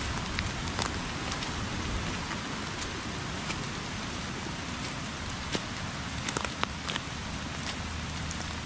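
Heavy rain falling steadily, with scattered sharp taps of individual drops landing close by.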